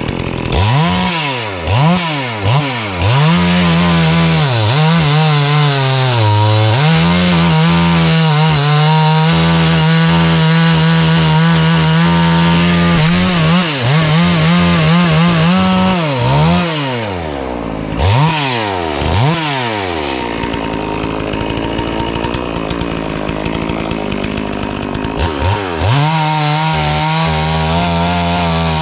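FarmMac F380W 72cc two-stroke chainsaw blipped several times, then held at full throttle for about ten seconds while cutting poplar. It drops to a low idle around twenty seconds in and is revved up again near the end.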